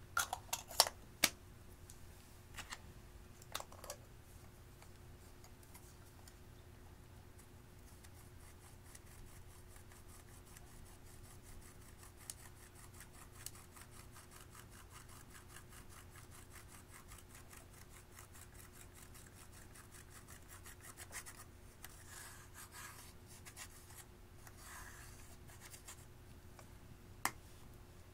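Pressed powder makeup being scraped and crumbled out of a plastic palette with the end of a makeup brush: a long run of fine, fast scratching ticks. There are a few sharp clicks in the first second and rasping scrapes near the end.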